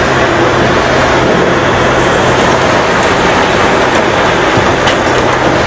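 Large hydraulic excavator running loud and steady under load, with a low engine hum, as its toothed bucket digs and scrapes through loose rock rubble.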